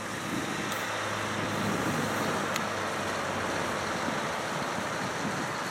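Heavy truck's diesel engine running at low speed as it pulls a loaded low-loader trailer away, a steady rumble with a low hum.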